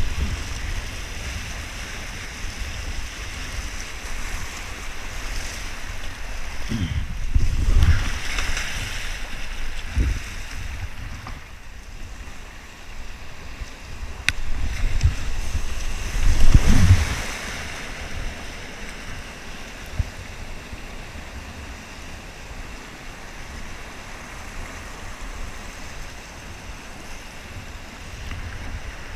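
Whitewater rapids rushing and splashing around a kayak, heard close up from the paddler's head-mounted camera. Louder rumbling surges of splashing water on the microphone come twice, about a quarter in and just over halfway in, the second the loudest.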